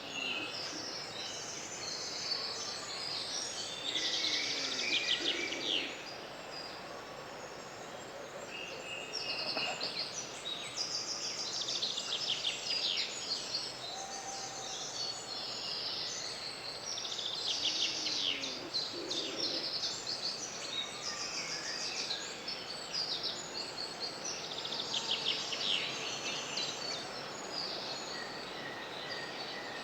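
Several woodland songbirds singing in overlapping phrases that come every few seconds, over a steady faint background hiss.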